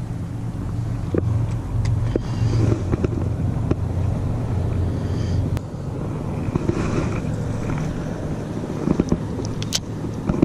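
A low, steady engine hum that stops about five and a half seconds in, with scattered light clicks.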